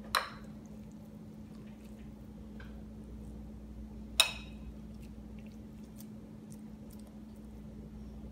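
Faint squishing of a wet grated zucchini mixture being scooped and pressed into a patty by hand, over a steady low hum, with two sharp clicks, one just after the start and one about four seconds in.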